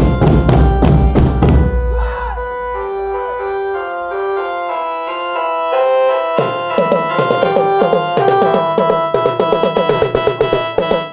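Koprekan street band playing: an electronic keyboard melody through a horn loudspeaker, over loud bass-drum hits at first. The drums drop out for a few seconds, leaving the melody alone. About six seconds in, a fast run of strokes on marching tenor drums starts and carries on under the melody.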